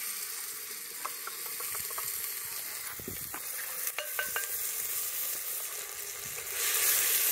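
Meat and onions sizzling as they fry in a cast-iron pot, with a spoon scraping and knocking against the pot now and then as the contents are stirred. The sizzling grows louder near the end.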